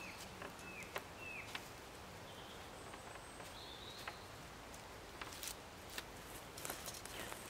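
Faint woodland ambience: a few short, falling bird chirps near the start, with scattered light clicks and rustles from the stick tripod being shifted and feet moving on leaf litter.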